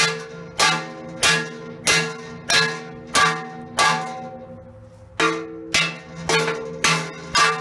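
Hammer blows on a rusty steel forge channel, about one and a half a second, each ringing with a metallic tone as a cut tab is bent back and forth. The blows stop briefly about four seconds in, then resume.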